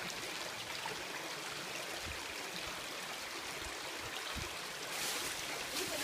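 Small mountain stream trickling and running over rocks, a steady rush of water, with a brief louder hiss about five seconds in.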